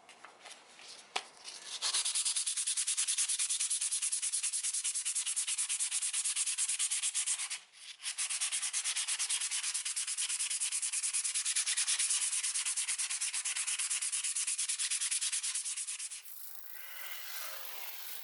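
Hand sanding: fast, even back-and-forth rubbing strokes that start about two seconds in, pause briefly near eight seconds and stop shortly before the end, preceded by a few separate scrapes.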